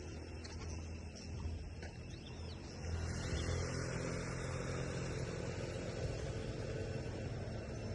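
An engine running steadily with a low hum, getting louder about three seconds in and then holding steady.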